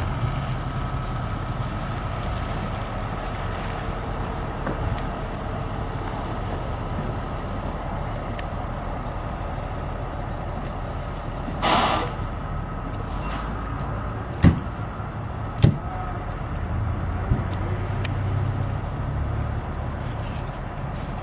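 Fire engine's diesel engine running, with a short hiss of its air brakes just before halfway through. Two sharp bangs follow about a second apart.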